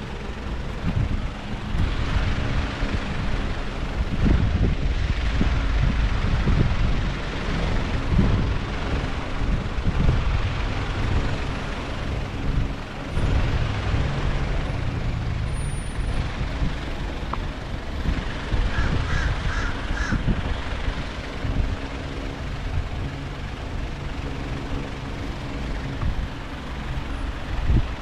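A steady low rumble throughout, with a bird calling four times in quick succession about two-thirds of the way through.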